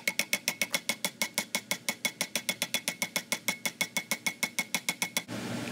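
Rapid, even metal-on-metal hammer taps, about eight a second with a slight ring, driving a new worm gear down onto a BMW transfer case actuator shaft. The taps stop abruptly about five seconds in, and a steady hiss follows.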